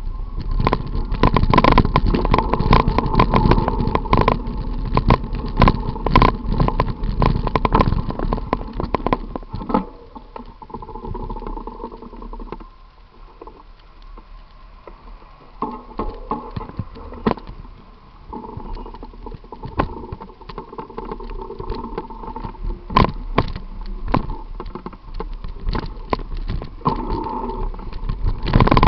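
Wind rumble and frequent rattling knocks picked up by a camera on a bicycle moving through city traffic, with a steady mid-pitched hum. The noise drops away for several seconds in the middle, when the bike slows among the stopped vehicles, then picks up again.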